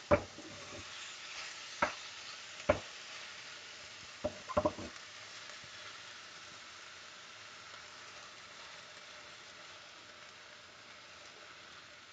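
Bone-in chicken thighs sizzling as they fry in a hot pan with tomatoes, the sizzle slowly dying down. A few sharp knocks of a utensil against the pan come in the first five seconds.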